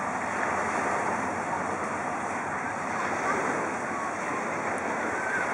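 Baltic Sea surf washing onto a sandy beach: a steady rushing noise, with wind on the microphone and faint voices.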